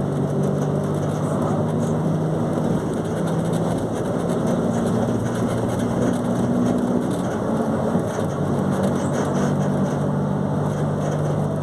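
Volkswagen 17.230 OD bus's diesel engine running steadily, its engine note shifting up and down a few times as the engine speed changes.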